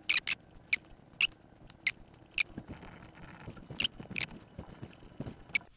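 Computer mouse button clicks: about ten short, sharp clicks at irregular intervals, with a quick pair near the start.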